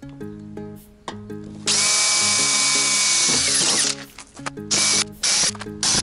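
Power drill drilling a hole in the bus's sheet-metal body: it runs for about two seconds, then spins down. Several short bursts of similar hiss follow near the end. Background music plays throughout.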